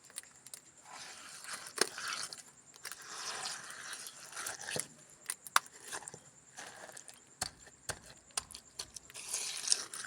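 Hand masonry work with cement mortar and bricks: gritty scraping and crunching broken by many scattered sharp taps.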